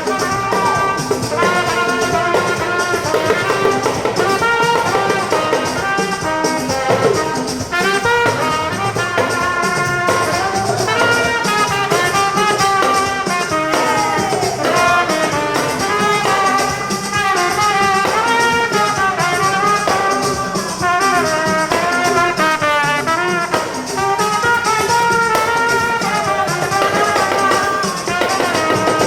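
Background music with brass instruments carrying the melody over a steady beat.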